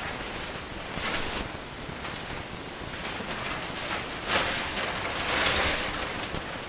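Rustling and scuffing noises in short bursts, about a second in and again between four and six seconds in, over a steady hiss.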